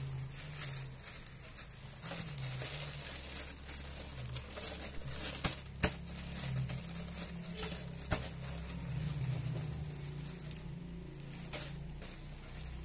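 Clear plastic packaging bags crinkling and rustling as they are handled, with a few sharp ticks where packages are set down on the desk.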